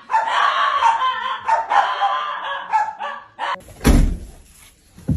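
A dog vocalizing in a run of short barks and yowls for about three seconds. Then a loud thud about four seconds in, and a sharp knock near the end.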